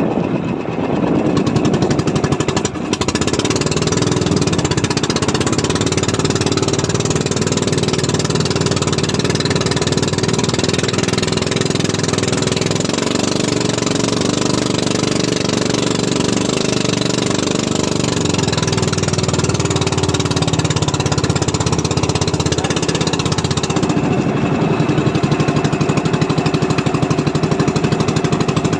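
Fishing boat's engine running steadily with a rapid, hammering beat; its pitch shifts a little partway through.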